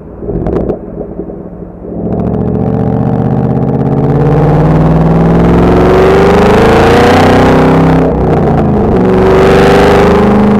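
2014 Shelby GT500's supercharged 5.8-litre V8 accelerating hard, loud, its pitch climbing steadily. About eight seconds in it dips briefly at a gear change, then pulls and rises again. A couple of sharp clicks come just before the acceleration starts.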